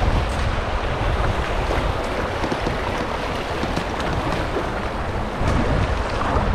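Rushing, splashing water of a shallow river riffle around a kayak's bow, with wind buffeting the microphone. The low wind rumble grows louder about five seconds in.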